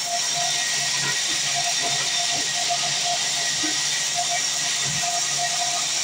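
Band-saw sawmill running, its blade cutting lengthwise through timber with a steady high hiss, and a few dull knocks as the wood is handled.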